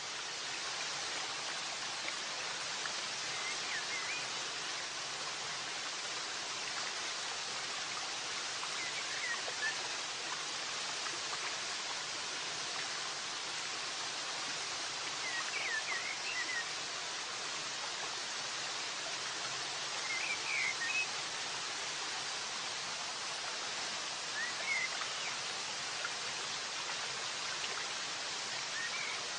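Muddy floodwater rushing down a wadi channel after heavy rain, a steady hiss of running water. A few short high chirps sound over it every few seconds.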